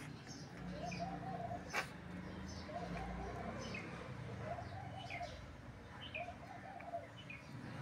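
Birds chirping in many short falling notes, with a lower call repeated about four times at even spacing and a single sharp click about two seconds in.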